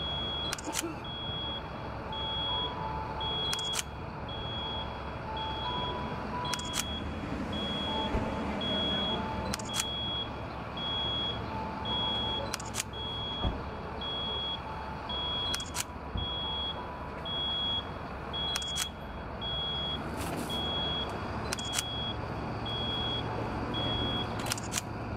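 A large mobile crane's diesel engine running low, with a steady electronic warning beep repeating a little more than once a second. A camera shutter clicks at even intervals of about three seconds, taking time-lapse stills.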